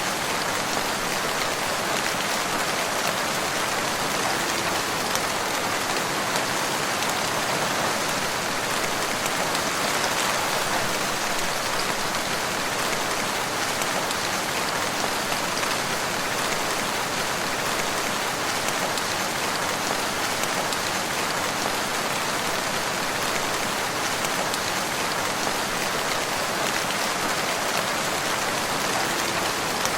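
Steady, even rainfall on foliage and ground, a constant hiss of drops.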